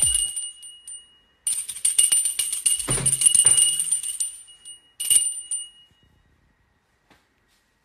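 Small hand-held bell shaken rapidly for about three seconds, ringing and jingling, then shaken again briefly about a second later.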